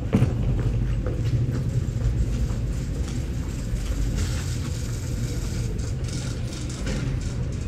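City street ambience at night dominated by the steady low rumble of a nearby vehicle engine running, with scattered clicks and taps.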